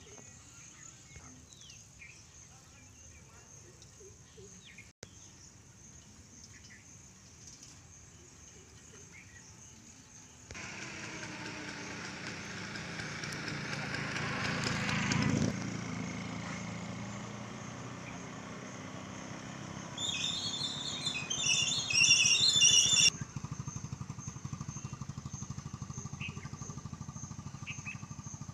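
Faint bird chirps over quiet open air. Then a motorcycle engine comes up, grows louder to a peak and fades as it passes. A few seconds of loud, shrill sound follows and stops suddenly.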